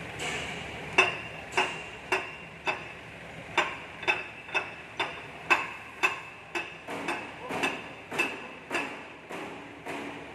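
Hammer blows on steel, about two a second in an even rhythm, each strike leaving a short metallic ring.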